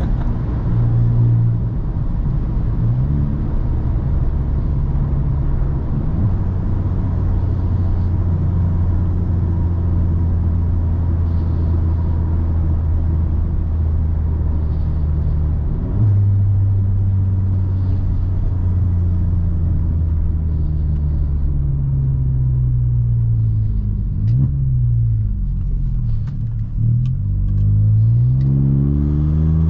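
Volkswagen T-Cross's Stage 1-tuned 1.0 TSI three-cylinder turbo engine running with the exhaust open right after the catalytic converter, heard loud inside the cabin at steady road speed. Near the end the engine note drops and climbs again several times as the throttle is lifted and reapplied.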